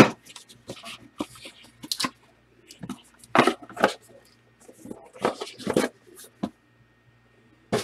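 A foam packing insert being worked and pulled out of a card box: irregular rustling, scraping and crunching bursts.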